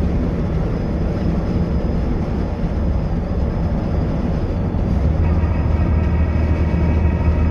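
Engine and road noise of a converted bus cruising on a motorway, heard from inside the cab. About five seconds in, a steady engine drone with a clear pitch comes in and holds.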